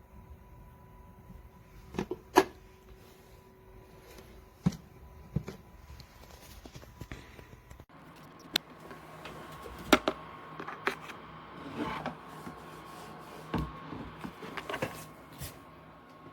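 Scattered clicks and knocks of something being handled, over a faint steady tone; the background changes abruptly about eight seconds in, after which the knocks come more often.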